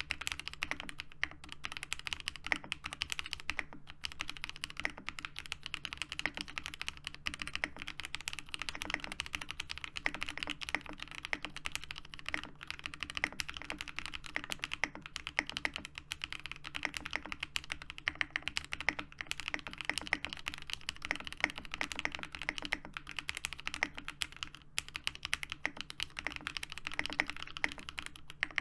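Fast, continuous typing on a Geonworks Frog TKL mechanical keyboard with lubed and filmed Zepsody Bluebonnet switches, PBT keycaps and an aluminium leaf-spring plate: a dense, steady stream of keystroke clacks.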